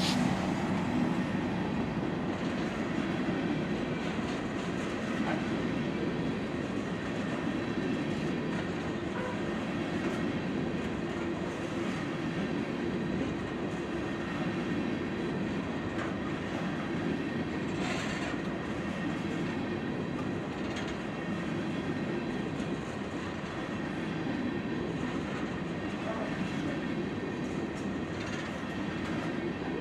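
Coal hopper cars of a freight train rolling past at steady speed: a continuous rumble of steel wheels on rail with occasional clacks and a faint steady high ring. The locomotives' diesel sound fades out in the first second or two.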